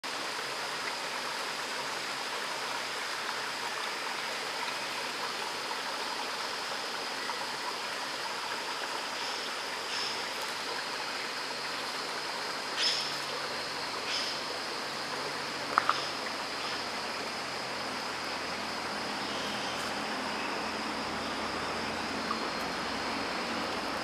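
Creek water running steadily over and between rocks, with a steady high-pitched hum above it. A few short sharp sounds come about halfway through.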